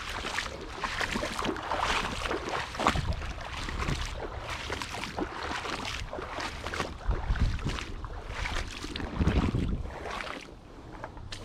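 Water splashing and sloshing in a shallow creek as someone wades through it, with many short irregular splashes and low thuds.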